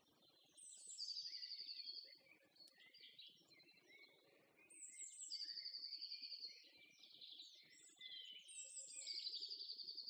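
A small songbird singing faint, repeated song phrases, three times. Each phrase opens with a high falling note and runs into a fast trill, with softer warbling between the phrases.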